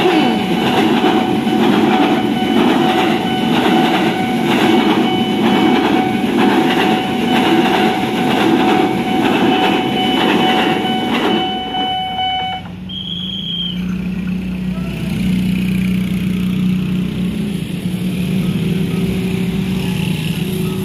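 An electric commuter train (a JR 205 series EMU) runs through a level crossing while the crossing's electronic warning alarm sounds a steady tone. Both cut off suddenly about twelve and a half seconds in. Motorcycle engines then run as the waiting traffic pulls across the tracks.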